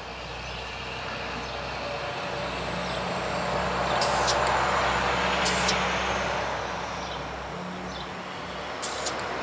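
A motor vehicle passing by: a broad rushing sound that builds over about four seconds, peaks around the middle and fades again, over a steady low engine hum. Three short hisses come at about four, five and a half and nine seconds.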